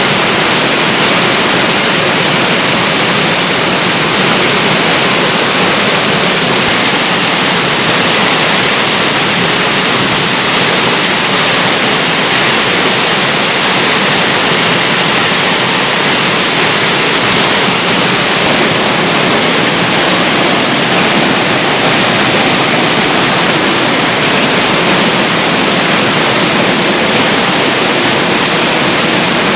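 Water of the Yongmasan artificial waterfall falling in a loud, steady, unbroken rush.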